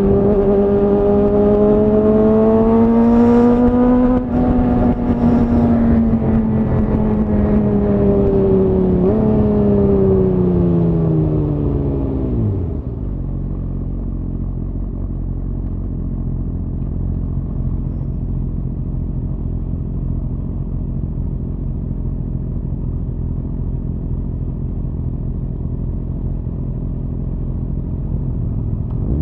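Suzuki GSX-R1000R inline-four through a Yoshimura R-11 SQ exhaust, running at steady mid revs, then off the throttle: the pitch falls away, with a brief blip about nine seconds in, and the engine settles into a steady low idle for the second half.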